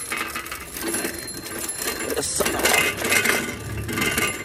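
Bicycle rattling and clinking as it rolls fast downhill over a rough, rutted dirt track, loose metal parts jangling with each bump.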